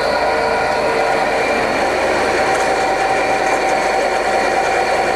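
Fuho F-350 vertical bandsaw running free with no cut, at its fast speed setting: a steady hum and whine of several even tones from the three-phase motor, belts and blade.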